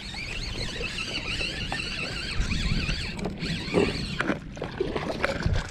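Spinning reel whining at a high, wavering pitch for about three seconds while a hooked fish is played. After it come a few short knocks and rustles of handling, over low wind and water noise.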